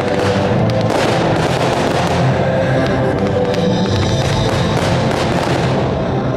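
Music playing steadily with fireworks crackling and popping over it throughout, many quick sharp reports from glittering bursts.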